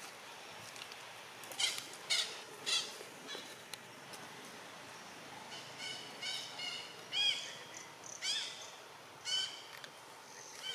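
Infant macaque calling: a string of short, high-pitched calls, each rising and then falling in pitch. About three come around two seconds in, and more follow in a closer run from about halfway.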